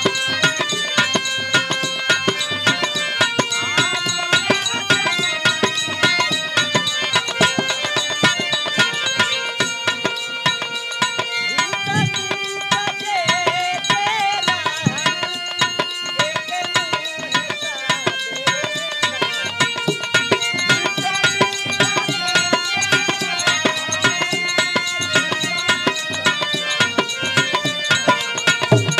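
Dholak and harmonium playing a fast folk instrumental: rapid hand strokes on the two-headed barrel drum over the harmonium's held reed notes.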